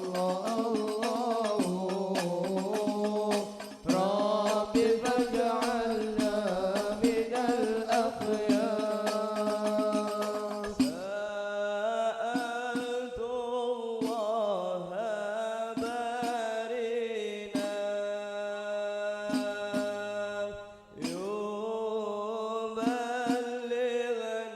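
Sholawat devotional singing with a hadrah ensemble of rebana frame drums. The drum strokes come quick and dense for about the first ten seconds, then turn sparser under long held sung notes.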